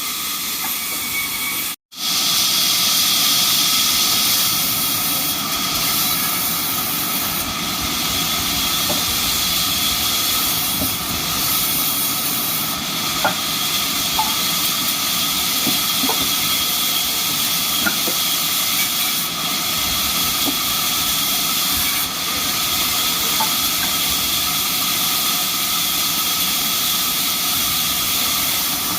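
Sawmill band saw running steadily, a continuous hiss with a faint steady whine and occasional light ticks. The sound cuts out for an instant about two seconds in.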